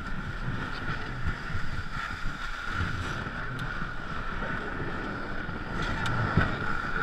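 Ice canoe hull sliding and scraping over snow as the crew push it along, a steady hissing scrape, with wind buffeting the microphone and irregular low thumps.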